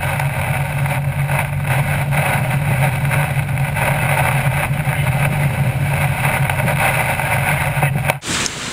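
Steady engine drone and road noise of a vehicle driving on a wet road, heard from inside the cab; it cuts off abruptly shortly before the end.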